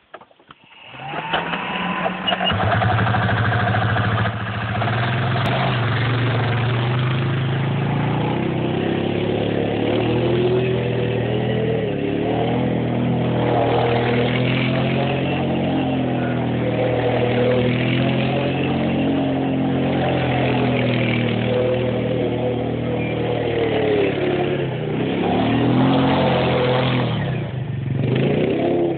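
Suzuki Eiger quad ATV's single-cylinder four-stroke engine starting about a second in, then running steadily. From several seconds in it revs up and down again and again as the quad is driven and drifted around a grassy field.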